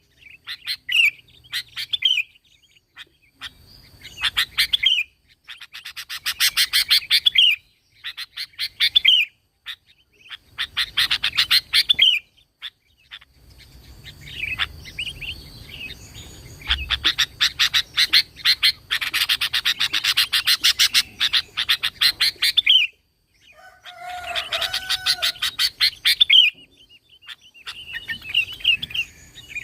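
Sooty-headed bulbul (kutilang) singing energetically, in bouts of rapid chattering notes lasting a few seconds each, separated by short pauses.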